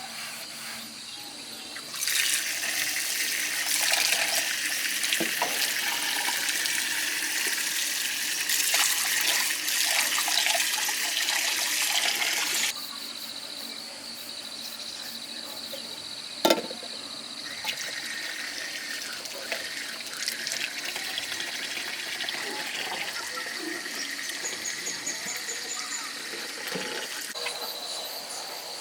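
Running water, a steady rush that starts abruptly a couple of seconds in and stops abruptly about ten seconds later, typical of a tap being turned on and off. A single sharp knock follows, over a steady high thin whine.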